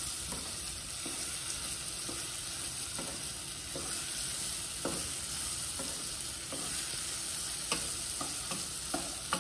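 Peeled beans frying in olive oil with turmeric and garlic, a steady sizzle, while a wooden spoon stirs them and knocks against the pot a few times in the second half.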